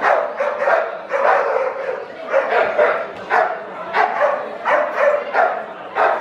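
A bull terrier barking over and over, about two to three barks a second, without a break.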